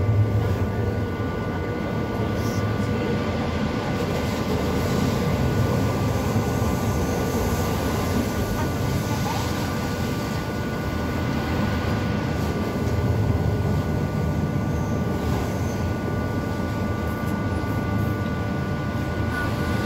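Rhaetian Railway train running steadily along the track: a constant rolling rumble with a faint steady high whine running through it.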